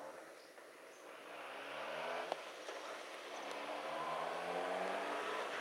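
Sport motorcycle engine running, getting louder as the bike approaches, with one short click about halfway through.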